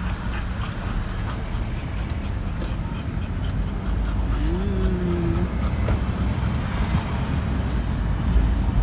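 Steady low rumble of a car driving along a road, with road and wind noise coming in through an open side window. About four and a half seconds in, a short rising-then-falling voice sound is heard.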